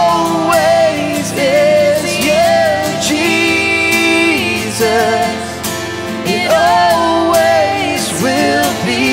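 Worship song: acoustic guitar strummed under a woman's and a man's singing, with long held notes.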